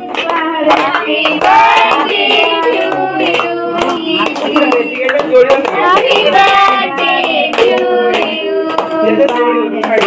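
Voices singing a song with hands clapping along.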